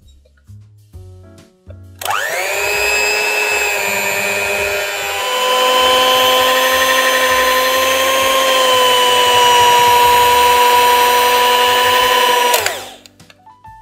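Electric mixer with dough hooks kneading bread dough: the motor spins up with a rising whine about two seconds in, runs steadily, a little louder after about five seconds, then winds down and stops near the end.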